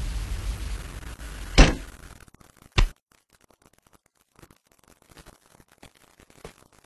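A low, dark music drone fades out over the first two seconds. Two sharp knocks of items set down hard on a desk come about a second and a half and nearly three seconds in, the first the louder. After that there are only faint, scattered ticks.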